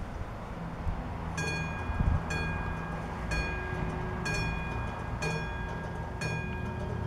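Level crossing warning bell starting up about a second and a half in, then struck about once a second with a ringing tone: the crossing's warning signals have activated for an approaching train.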